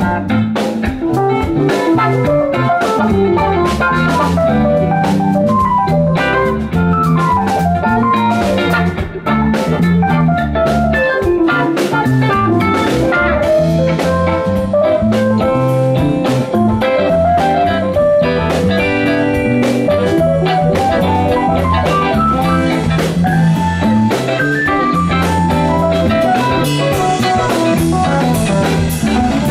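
Live rock band playing an instrumental jam: a lead guitar runs melodic lines over keyboards, drums and a steady low bass groove.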